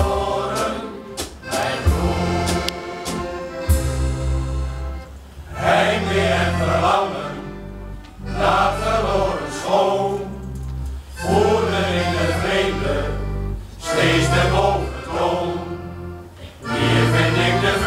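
Male shanty choir singing a Dutch song, accompanied by two accordions with a steady bass line. The singing comes in phrases with short breaks between them.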